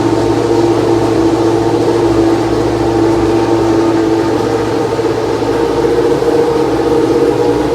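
Benetton B190 Formula 1 car's Ford Cosworth V8 engine running loud and steady without revving. Its tone shifts slightly about halfway through.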